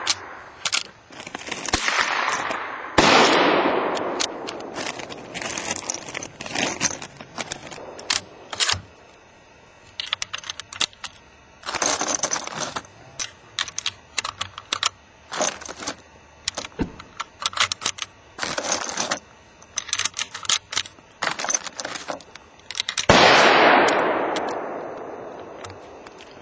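Rapid semi-automatic rifle fire, most plausibly a Ruger 10/22 in .22LR, with dozens of shots in quick strings, often several a second. Three louder shots, one near the start, one about 3 s in and one about 23 s in, each echo away over two or three seconds.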